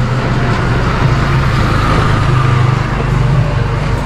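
A vehicle engine running steadily, a low hum under a rushing noise.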